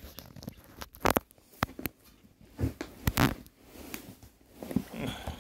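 Puppies scuffling on a wooden floor: scattered light clicks and taps of claws on the boards, with soft rustling.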